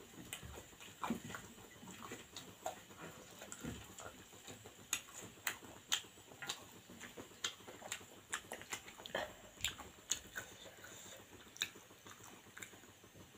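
A person eating by hand: chewing and mouth noises with many irregular sharp clicks, and fingers picking up the last morsels from a steel plate.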